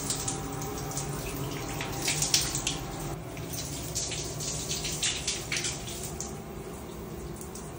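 Shower running, its water spraying and splattering on tiles, with heavier uneven splashes about two seconds in and again around four to six seconds in.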